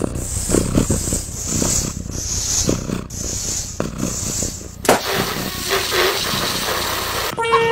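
A rubber balloon being blown up, air hissing in pulses about twice a second, then bursting with one sharp pop nearly five seconds in.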